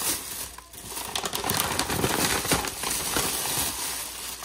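Thin plastic shopping bag rustling and crinkling as hands rummage inside it and pull out a plastic-wrapped package of chicken, a dense run of small crackles throughout.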